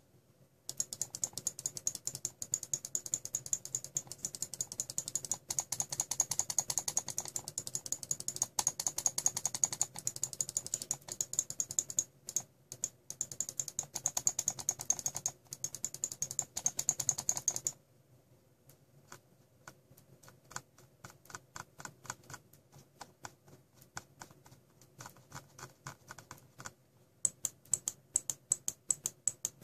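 Maxtill Tron G60 gaming mouse buttons being clicked in fast, dense runs. A bit past halfway through the clicks turn quieter and more spaced out, then come fast and loud again near the end.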